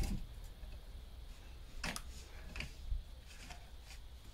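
A handful of faint, scattered clicks and taps from a wrench being worked on brake caliper bolts.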